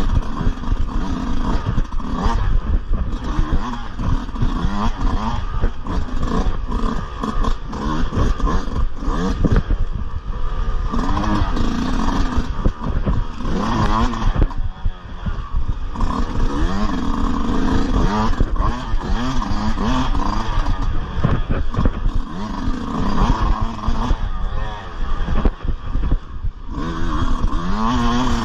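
Yamaha dirt bike engine revving up and down again and again as the throttle is worked through tight turns, with rattling and knocks from the bike over rough ground.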